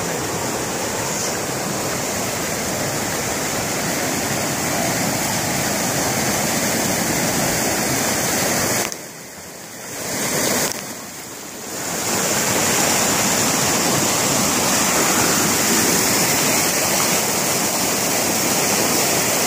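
Rushing water of a small mountain stream cascading over granite slabs into rock pools, a steady loud rush. It falls away sharply twice, for about a second each, around the middle.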